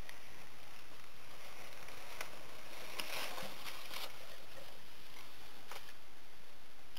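Cloth snake bag and crumpled brown packing paper rustling and crinkling as the bag is lifted out of a shipping box, in several short scraping bursts over a steady hiss.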